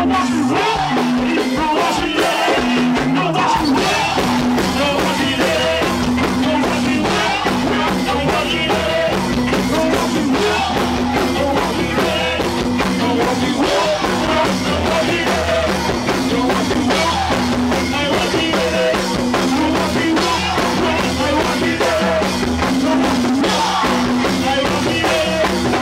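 Live go-go band music: drum kit and percussion keeping a steady beat over a repeating bass line, with a voice singing over it.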